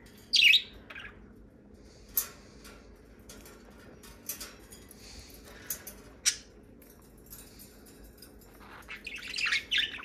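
Pet budgerigars chirping: one loud high call about half a second in, scattered short chirps after it, and a busier run of chirping near the end.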